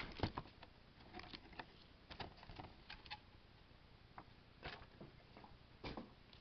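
Faint scattered rustling and crinkling clicks of trading-card packs being handled and opened, with a few sharper crackles about halfway through and near the end.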